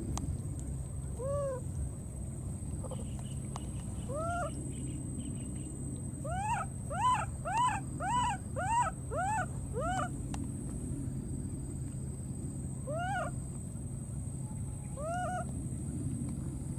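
Baby monkey crying out in short, high calls that rise and fall in pitch: a few single cries, then a quick run of about eight in a row, then two more near the end. These are the cries of a young monkey separated from its companion and looking for it.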